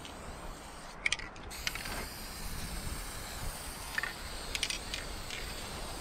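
Aerosol spray paint can hissing as paint is sprayed onto a wooden sign, with several small clicks and rattles from the can, about a second in and again around four to five seconds in.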